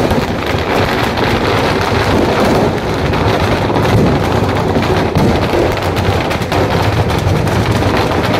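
Firecrackers packed inside a burning Ravana effigy going off in a dense, unbroken crackle.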